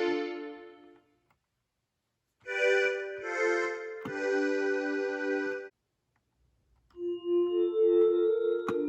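Chords played on the Akai MPK Mini Play MK3's built-in keyboard sounds, in an electric-piano-like voice: a chord dies away, then after a short silence another chord is held for about three seconds. After a second pause, a different-sounding patch starts near the end.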